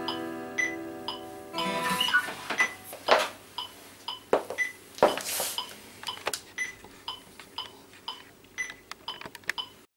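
An acoustic guitar's last strummed chord rings out and fades. The guitar is then handled and carried, with knocks and thumps on its body and light ticks about twice a second. The sound cuts off suddenly near the end.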